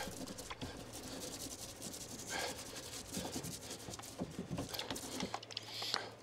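Hand sanding: sandpaper rubbed over a hard surface in rapid, irregular strokes, with a few stronger scrapes.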